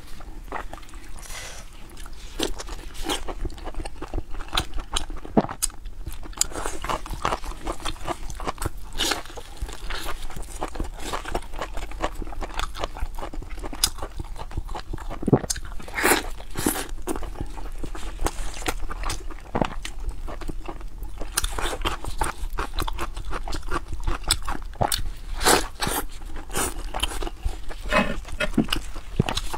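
Close-miked eating of braised pork knuckle: steady wet chewing and mouth smacking, with meat pulled apart by hand. Many short, irregular clicks follow one another throughout.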